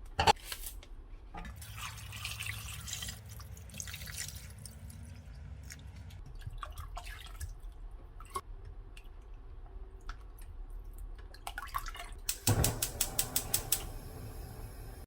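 Water dripping and trickling, with scattered clicks and knocks and a quick run of rapid clicks, about eight a second, near the end.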